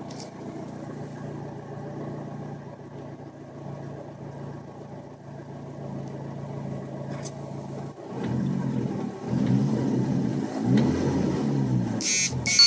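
VW Lupo's swapped-in 2.0 TFSI turbocharged four-cylinder idling steadily, then revved in a series of quick throttle blips from about eight seconds in. A short, sharp burst of noise comes near the end.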